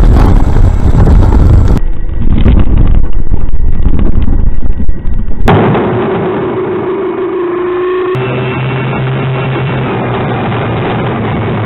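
Model aircraft engine and propeller noise heard through the on-board and ground cameras, rough and loud with wind buffeting for the first five seconds or so. The sound cuts abruptly between spliced clips, then goes on as a quieter, steadier drone with held tones.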